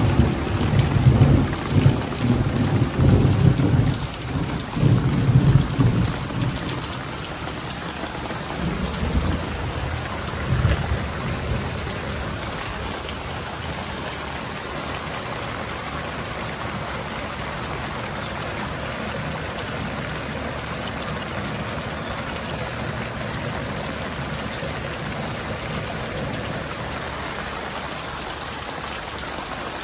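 Steady rain falling on wet concrete and fabric-covered ground. A low, rolling rumble swells and fades over the first ten seconds or so, then the rain carries on alone.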